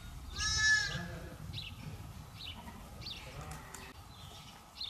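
Romanov sheep bleating: one loud, high bleat about half a second in, then a few faint, short high calls.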